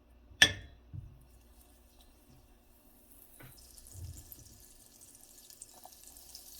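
Kitchen handling sounds: a sharp clack about half a second in, then a few softer knocks, with faint water running from a tap.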